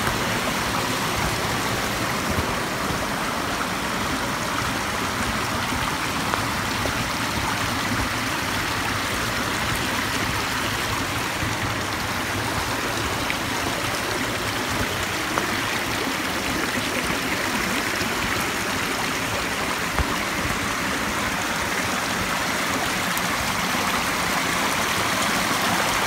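Steady rushing of flowing water, an even, unbroken noise.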